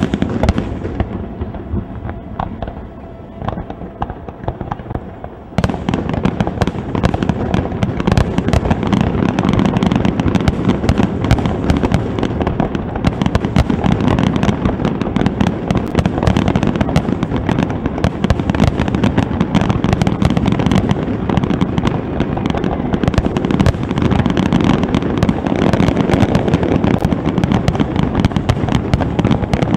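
Fireworks display: aerial shells bursting, a few separate bangs at first, then about five and a half seconds in the sound jumps to a dense, continuous barrage of rapid booms and crackles that keeps going.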